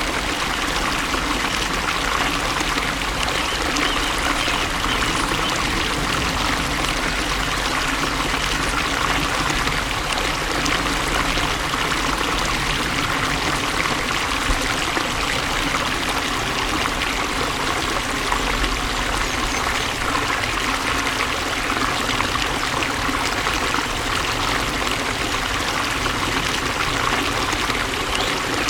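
Water flowing steadily in a stream, a continuous, even rushing and trickling.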